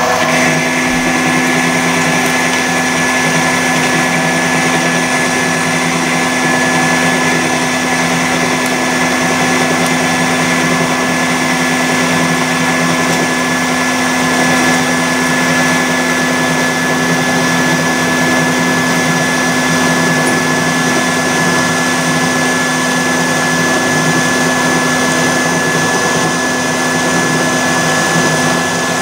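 Homemade CNC lathe cutting a 19 mm bright mild steel bar on a roughing pass: the spindle and drives run with a steady whine under the noise of the tool cutting the steel.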